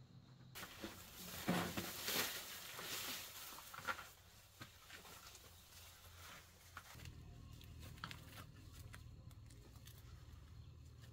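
Rustling and crackling of grass and leaves, with scattered clicks, as a bicycle is pushed on foot through dense undergrowth; the rustling is loudest in the first few seconds. A low steady hum comes in about seven seconds in.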